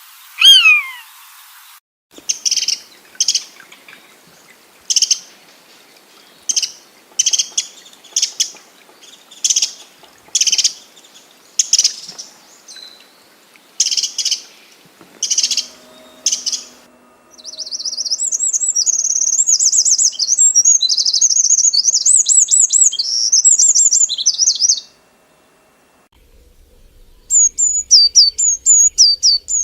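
Bird calls from several birds in turn: a single falling whistle, then a series of short separate chirps about once a second, then several seconds of fast warbling song, and near the end a quick run of short falling notes.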